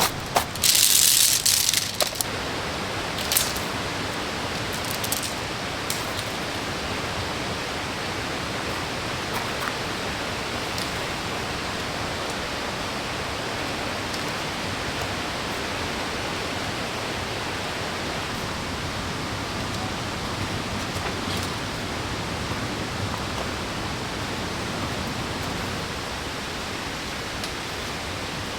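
Steady rushing of a waterfall and stream. About a second in, a short loud hiss and a few sharp clicks sound over it.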